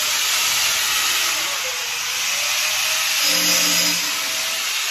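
Loud steady hiss that cuts off abruptly near the end.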